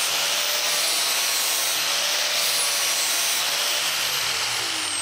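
DeWalt angle grinder with a 40-grit flap disc grinding the cutting edge of a steel mulching lawn mower blade: a steady, even grinding hiss. Near the end a high whine falls steadily in pitch as the grinder winds down.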